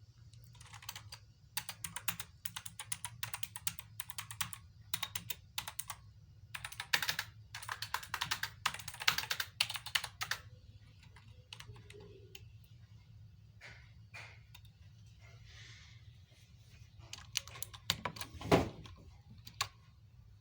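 Keys of a metal-frame mechanical gaming keyboard being typed on: rapid clattering keystrokes for about the first half, then scattered single key presses. One louder knock comes near the end, over a steady low hum.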